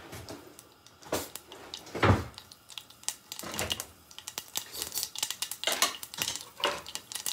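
Mustard seeds crackling and popping in hot oil in a small saucepan, as irregular sharp pops that come thicker and faster from about halfway through. A single heavier knock about two seconds in.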